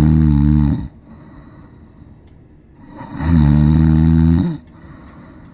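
A man snoring loudly: a long steady low-pitched snore at the start and another about three seconds later, with quiet breathing gaps between.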